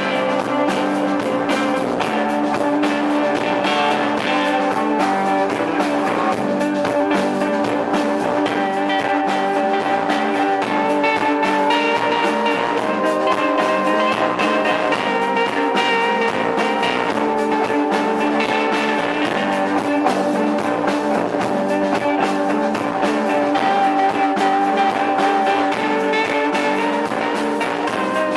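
Post-punk band playing live: electric guitar to the fore over a steady drum beat, with no singing.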